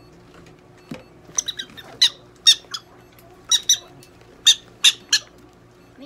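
Prairie dog giving a run of short, sharp, high-pitched chirps, about a dozen in quick groups of two or three.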